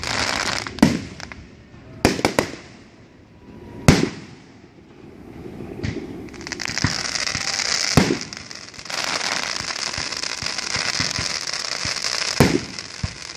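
Aerial firework shells bursting with sharp bangs, several in the first four seconds and more about eight and twelve seconds in. From about six seconds in, a dense, steady crackling runs on beneath the bangs.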